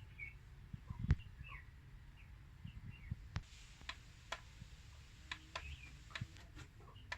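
Faint short bird chirps, with sharp clicks scattered through and a low rumble underneath.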